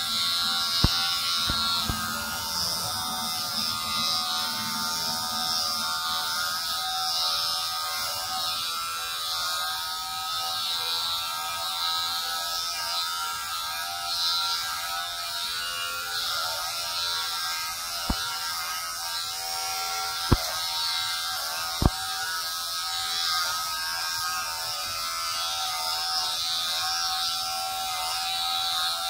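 Corded electric hair clippers buzzing steadily as they shave a man's head down. A few sharp clicks stand out, one near the start and three around two-thirds of the way through.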